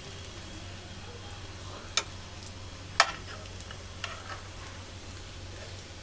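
Colocasia-leaf pinwheels (arbi patode) shallow-frying in oil in a pan, a steady light sizzle. A metal spatula clacks sharply against the pan twice, about two and three seconds in, with a few lighter taps just after.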